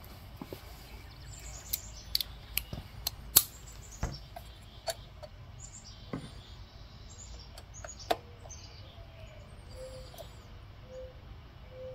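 Sparse, irregular metal clicks and taps from hand tools working the rocker arm adjuster of a Briggs and Stratton 550EX overhead-valve engine as its center lock is tightened to hold the valve clearance, with small birds chirping faintly now and then.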